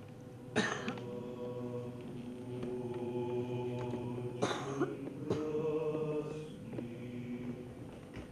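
Slow choral music with long held notes, with two short loud noises about half a second in and again about four and a half seconds in.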